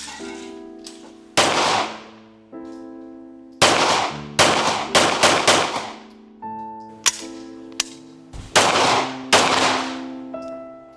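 Heckler & Koch P7M13 9mm pistol firing about ten shots at an uneven pace, several in quick succession, each shot trailing off in a ringing echo. Background music plays underneath.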